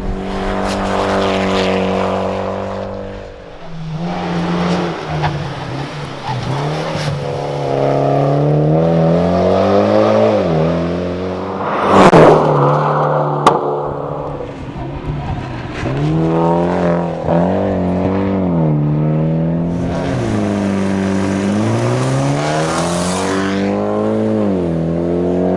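Mitsubishi Lancer Evolution X's turbocharged 2.0-litre four-cylinder engine under hard rally driving, its pitch climbing as it accelerates and dropping at each gear change or lift, over and over. About halfway through there is a loud, short crash of noise, followed a moment later by a sharp click.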